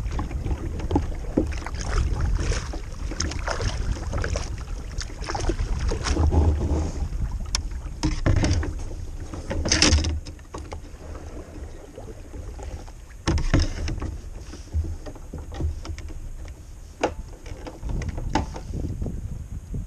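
Kayak paddle strokes dipping and splashing in the water, with scattered sharp knocks and a steady low rumble of wind on the microphone.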